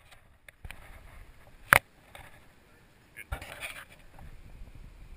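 Rustling and crunching of dry weeds and brush underfoot on a steep riverbank, with a single sharp click a little under two seconds in and a louder burst of rustling about halfway through.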